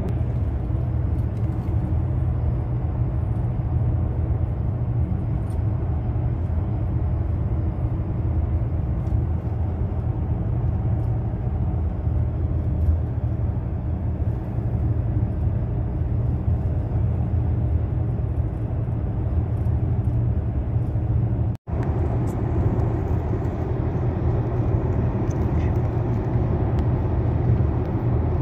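Steady road and engine rumble heard from inside a moving car's cabin. The sound cuts out for an instant about three quarters of the way through.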